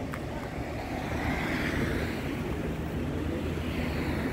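Steady outdoor noise of traffic on the street alongside, with wind noise on the microphone.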